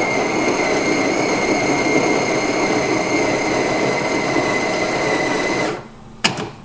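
Coin-operated hot drink vending machine brewing a cup: its mixing motor and pump run steadily with a high whine, mixing the powder with hot water. It cuts off abruptly near the end, followed by a sharp click.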